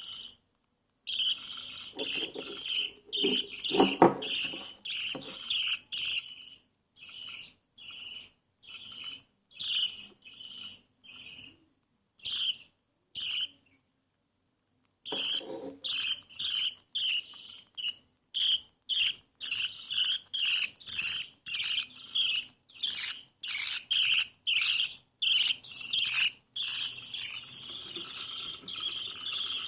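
Baby budgie's high-pitched raspy food-begging calls, repeated about twice a second while it is being fed. There is a short pause about halfway through, and the calls come faster near the end.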